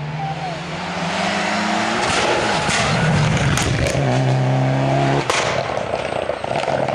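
Rally car's engine revving hard as it approaches and passes, its pitch climbing for about two seconds before breaking off with a few sharp cracks. It revs high again, then the note cuts off abruptly with a crack just after five seconds and carries on lower.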